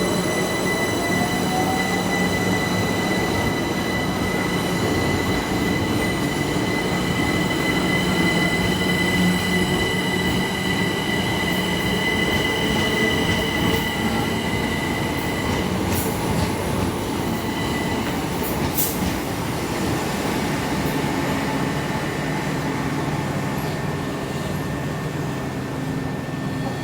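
A train running along the platform: a steady rumble with high steady whining tones over it, easing off a little in the second half, with a few faint clicks.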